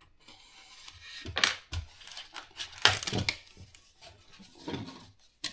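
RC model parts being unpacked: plastic packaging pulled open and foam and plastic pieces handled, with rustling, scraping and a few sharp clicks and knocks, the sharpest near the end.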